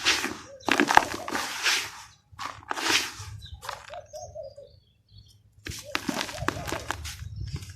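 Crunchy sand-and-cement chunks being crushed and crumbling in repeated crunching bursts, with a quiet gap in the middle.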